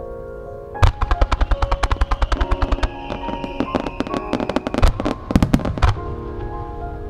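A rapid string of firework reports starts about a second in, about eight bangs a second for two seconds, then turns more scattered, with a few louder bangs near the end. Music plays for the display throughout.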